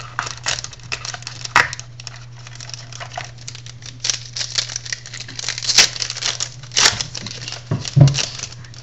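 Foil wrapper of a football card pack crinkling and tearing as it is ripped open by hand, with a quick run of sharp crackles and clicks.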